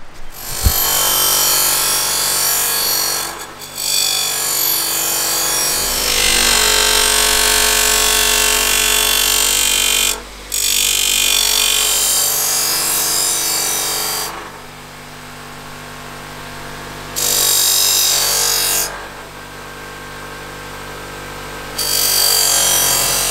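Electric bench grinder running with a knife blade pressed against its spinning wheel: a harsh grinding noise over the motor's steady hum, in several stretches, dropping back to mostly hum in between.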